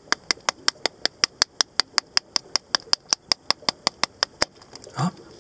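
A small hammer tapping a hollow plastic surprise egg in quick, even strokes, about five a second, to crack it open along its seam. The taps stop about four and a half seconds in, after a last, stronger knock.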